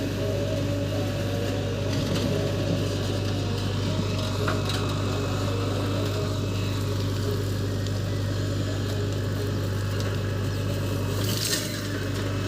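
Diesel engine of a JCB 3DX backhoe loader running steadily, with a few faint knocks and a brief hiss near the end.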